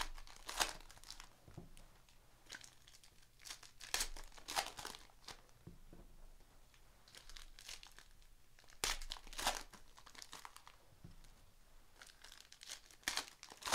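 Foil trading-card pack wrappers, 2017-18 Panini Prizm basketball, being torn open and crinkled by hand. The crackling comes in short bursts about a second in, around four to five seconds, around nine seconds and near the end, with quieter handling of the packs and cards between.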